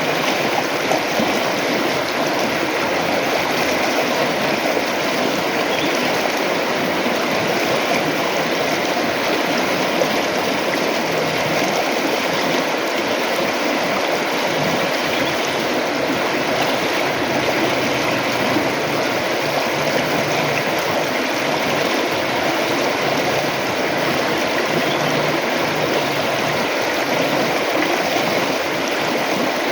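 River water flowing and gurgling in a steady, even rush with no break.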